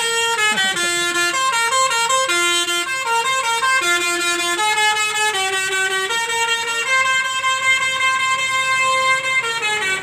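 Telolet horn on an ANS intercity coach playing a quick tune of short stepped notes, often two or three sounding together. The tune stops near the end.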